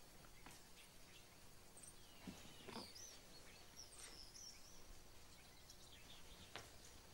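Near silence: faint ambience with a few soft bird chirps in the middle and a faint click near the end.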